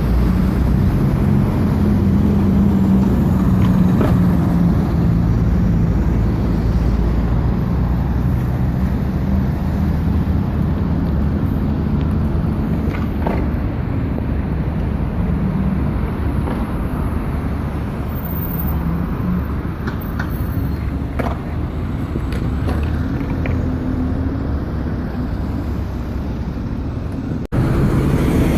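London bus diesel engines and road traffic: a steady low rumble, with a pitched engine note that holds through the first half and then fades. A few faint clicks, and a brief sharp break in the sound near the end.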